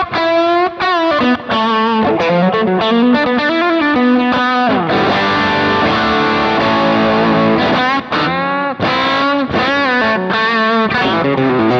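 Distorted electric guitar played through a Kemper Profiler's Marshall amp profile: a lead phrase with string bends and vibrato, a chord held for about three seconds in the middle, then more bent lead notes. The treble band of the profiler's graphic EQ is scooped out.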